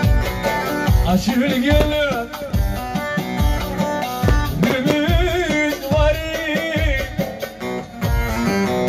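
Live Turkish folk music: a man sings over an amplified bağlama (long-necked saz), with a darbuka keeping a steady low beat.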